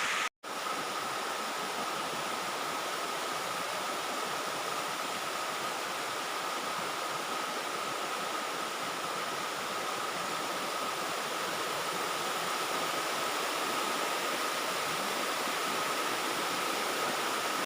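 Waterfall rushing: a steady, even roar of falling water, with a faint steady high tone running through it.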